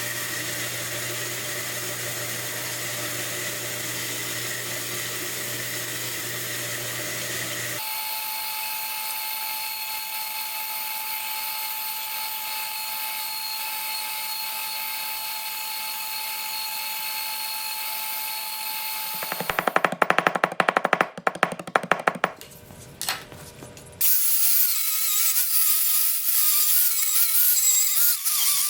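Workshop power tools on metal, in a series of separate cuts: a steady motor whine that changes pitch abruptly about a third of the way in, then a loud burst of rapid scraping strokes, then a loud, hissy grinding or sanding noise near the end.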